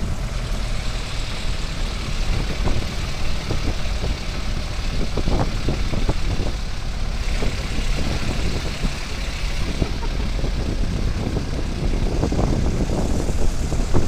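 Vehicle engine running and road noise from inside a moving vehicle on a narrow country lane, a steady low rumble with scattered knocks and rattles that grow busier near the end.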